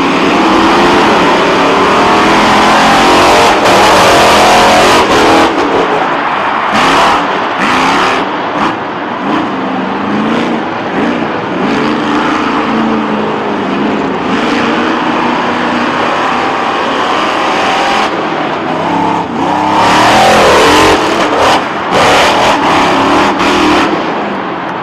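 Bigfoot #4 monster truck's engine revving loudly, its pitch climbing and dropping again and again as it is driven hard across the arena.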